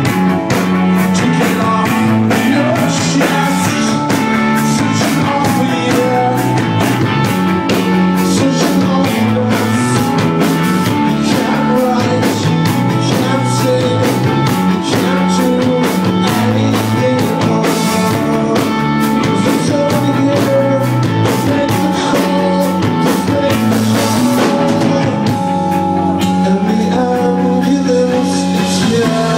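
Live rock band playing loud: electric guitars and drum kit with a singer. The drums drop out near the end.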